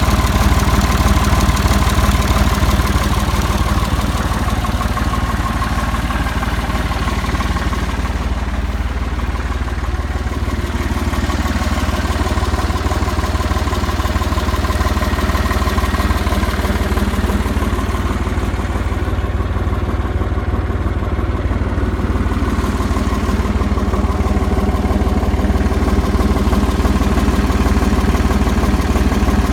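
John Deere 350 crawler bulldozer's engine running steadily, easing off slightly about a third of the way through.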